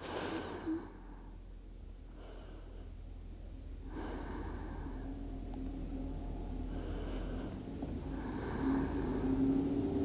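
A woman breathing slowly and deeply, with an audible exhale at the start and several more breaths after it, over a low steady hum.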